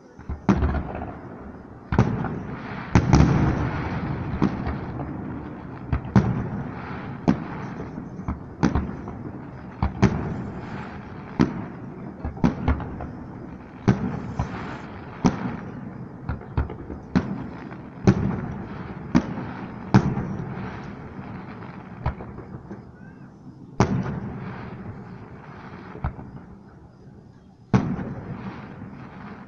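Fireworks display: aerial shells bursting in quick succession, about one bang a second, each followed by a rolling echo. There is a short lull about three quarters of the way through before two more bangs.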